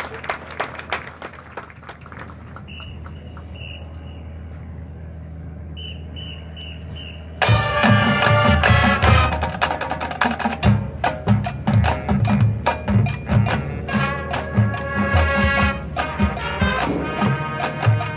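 High school marching band playing its field show: a quiet stretch with a few short, soft high notes, then about seven seconds in the full band comes in loud with brass and drums.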